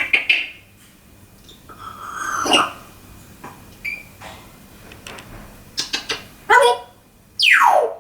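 African grey parrot calling and mimicking: sharp clicks, a few short squawk-like calls and then a long call falling steeply in pitch near the end.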